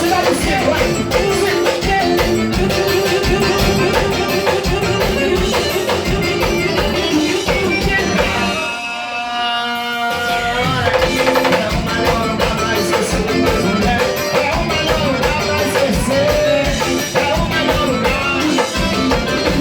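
Live piseiro band music with drums and guitar over a steady beat. About nine seconds in the drums drop out for a moment and a held chord sounds alone, then the full band comes back in.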